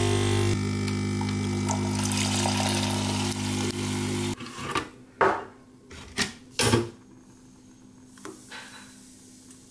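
Espresso machine pump running with a steady hum as espresso pours into the cup, cutting off about four seconds in. Then a few sharp knocks and clinks of the cup and milk frother being handled.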